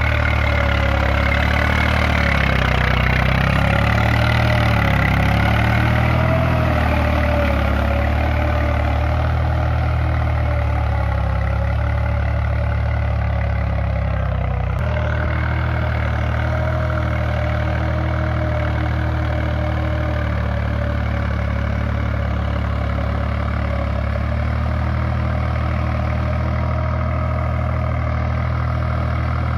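Swaraj tractor's diesel engine running steadily under load as it pulls a cultivator on cage wheels through a flooded, muddy field. The engine note shifts abruptly a little past halfway.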